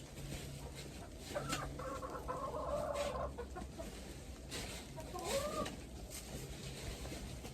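Chickens clucking: a drawn-out, wavering call from about one and a half to three seconds in, and a shorter call that rises in pitch about five seconds in.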